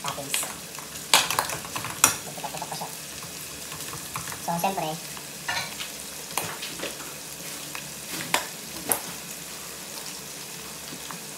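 Pork cubes sizzling as they fry in a pot, with sharp clicks and pops scattered through. The loudest clicks come about one and two seconds in, while a spatula stirs the meat against the pot.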